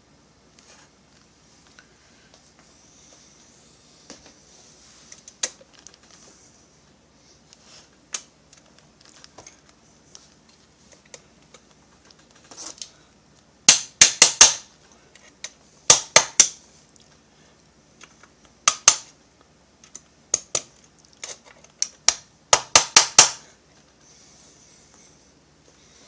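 Sharp clicks and taps of hard chainsaw parts and hand tools being handled and fitted together. Faint scattered ticks at first, then from about halfway through come loud bursts of several rapid clicks, five or six of them.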